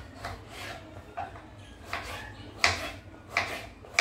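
Irregular light knocks and clicks of kitchen items being handled, about one every half second to second, the loudest about two and a half seconds in.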